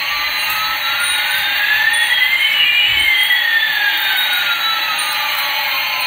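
Electronic sound effect: a steady hiss with two whistling tones sweeping across it, one rising and one falling, crossing about halfway through.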